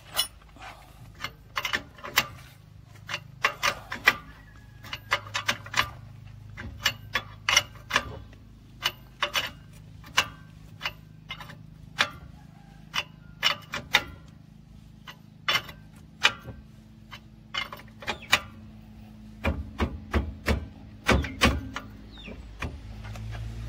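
Sharp metallic clicks and clinks, a few a second at irregular spacing, from a socket wrench turning a lug nut on a new wheel stud, drawing the stud into the hub.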